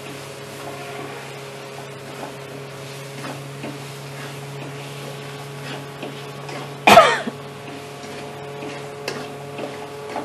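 Steel spatula stirring and scraping onion-and-spice masala frying on a low flame in a kadhai, with faint scattered clicks over a steady low hum. A person coughs once, loudly, about seven seconds in.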